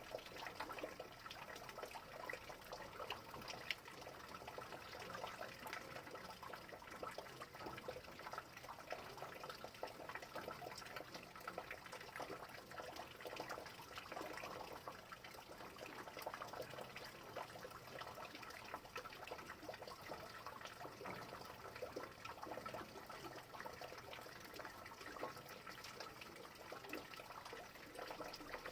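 Rain falling steadily: an even patter of many small drops.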